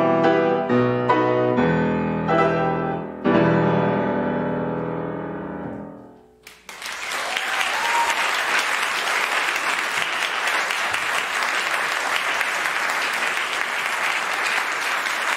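Closing bars of a double bass and grand piano duo: a few final chords, the last one struck about three seconds in and left to ring and fade away. About halfway through, audience applause breaks out and carries on steadily.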